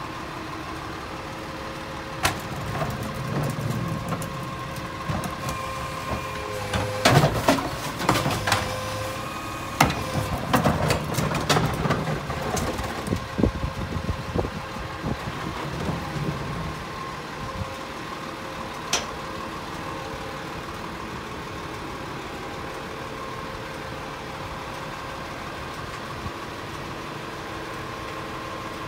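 Autocar Heil rear-loader garbage truck running at idle with a steady hum. Through the first half come a series of bangs and clatters as recycling is handled in the hopper; after that only the steady engine sound remains.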